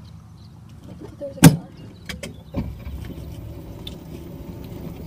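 Golf cart driving along with a low rumble, and a sharp knock about one and a half seconds in, the loudest thing heard, followed by a few lighter clicks.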